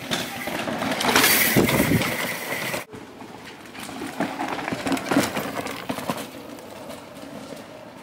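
Downhill mountain bikes coming down a rocky dirt race course: tyres scrabbling and skidding on dirt and rock, with the bikes knocking and rattling. The loudest pass, in the first three seconds, carries a high steady tone for about a second and cuts off suddenly; quieter knocks and bumps follow as another rider comes through.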